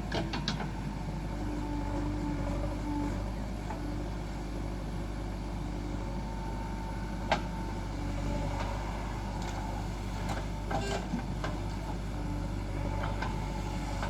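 Heavy diesel machinery running steadily, with a single sharp knock about seven seconds in and a few lighter knocks near eleven seconds.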